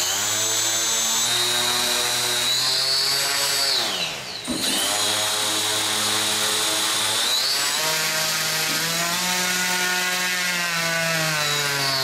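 Predator 37 electric sustainer motor driving its propeller, a whine of stacked tones. About four seconds in the speed drops sharply and briefly, then comes straight back up; it eases down again around seven and a half seconds and speeds up near the end.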